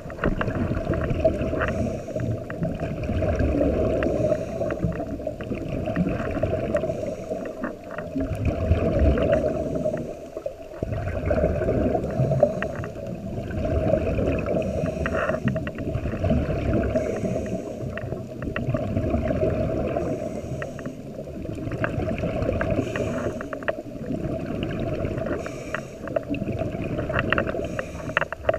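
Scuba diver breathing through a regulator, heard underwater: a muffled bubbling rumble of exhaled air with crackling bubbles, swelling and easing every few seconds with each breath.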